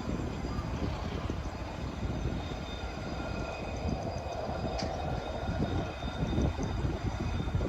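A train running past: a steady heavy rumble of wheels on rails, with irregular clatter.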